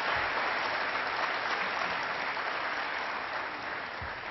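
Audience applauding in a hall, slowly fading away near the end.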